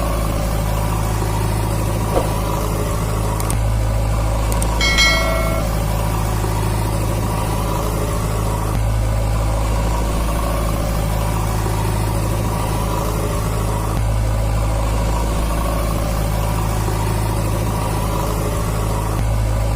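A vehicle engine running steadily at idle, an even hum with no change in pitch, broken once about five seconds in by a short high beep.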